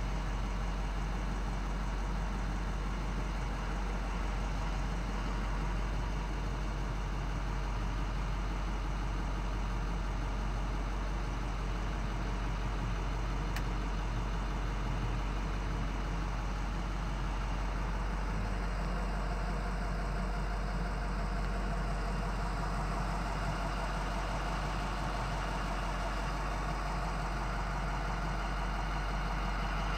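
International VT365 6.0-litre turbo-diesel V8 idling steadily, heard from inside the truck's cab.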